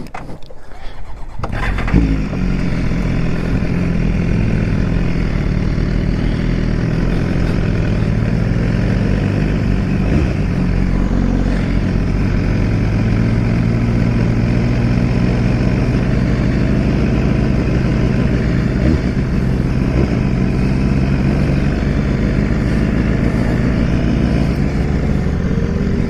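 Motorcycle engine starting about two seconds in, then running steadily at low, even revs.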